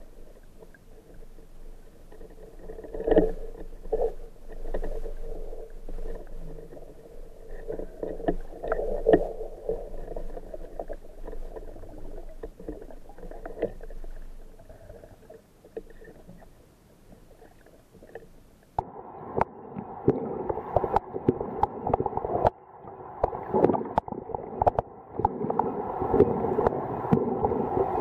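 Underwater sound picked up through a camera's waterproof housing: a muffled wash of water with many short clicks and knocks. About two-thirds of the way through it changes suddenly and becomes louder and busier.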